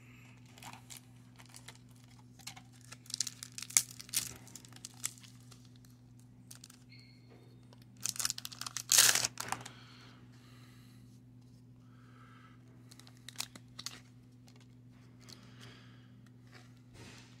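Metallic foil baseball card pack crinkling and being torn open by hand, in bursts of crackling, the loudest tearing about eight to nine seconds in.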